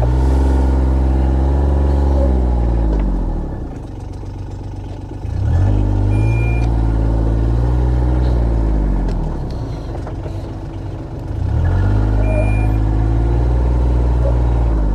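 John Deere Gator HPX 815 utility vehicle's engine pulling under throttle, easing back and pulling again three times as the vehicle shunts back and forth. A short high electronic beep sounds twice, each soon after the engine picks up.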